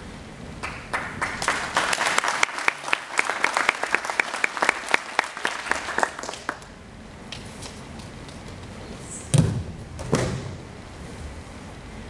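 Spectators clapping for about six seconds, with one person's sharp claps close by at about four a second. About nine seconds in comes a heavy thud of a judoka landing on the mat after a throw, followed by a second, lighter thud.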